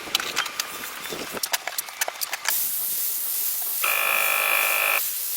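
A quick run of sharp clicks and taps, then a steady loud hiss like spraying air or steam that starts about halfway. A pitched whine joins it for about a second near the end.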